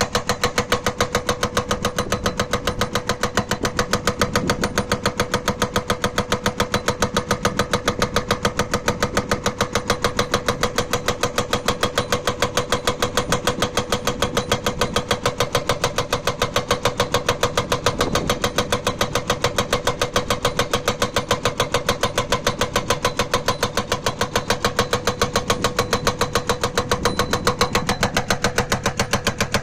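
Hydraulic rock breaker on a JCB backhoe loader hammering hard stone in a rapid, even rhythm of blows, over the steady note of the running diesel engine.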